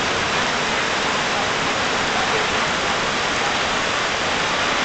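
Heavy monsoon rain pouring down: a loud, steady, dense hiss.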